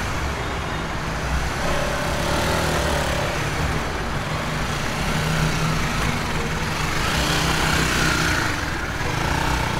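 Manual motorcycle engine running steadily at low revs in first gear, with only a little throttle and the clutch half engaged for slow, controlled riding.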